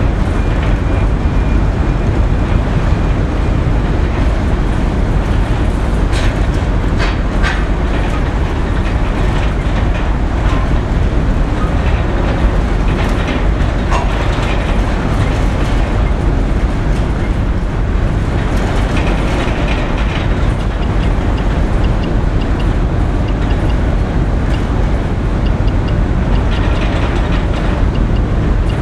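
Steady low rumble of a large car ferry's engines and machinery, heard from its open upper deck as it manoeuvres in to berth, with a few faint clicks.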